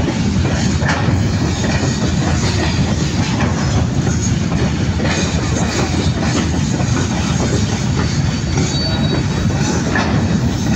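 Freight train's hopper wagons rolling past close by: a steady rumble with wheels clacking over the rail joints, and a brief high wheel squeal near the end.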